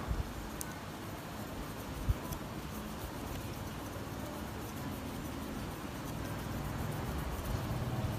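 Faint rubbing of a tissue over a phone's plastic display module, over a low steady background rumble, with a soft knock about two seconds in.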